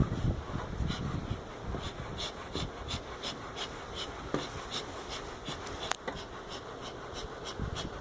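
Honey bees buzzing around an opened wall hive, with short hissing bursts repeating about three times a second.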